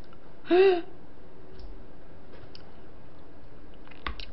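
A brief hummed vocal sound from the eater about half a second in, then quiet eating noises: faint clicks and, near the end, a few sharper clicks of chopsticks and plastic takeout containers.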